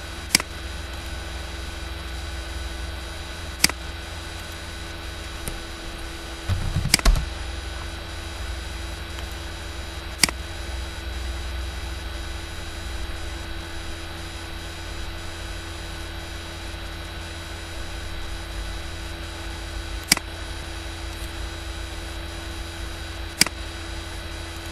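Computer mouse clicking about six times, widely spaced, over a steady electrical hum and hiss. A short low thump comes about seven seconds in.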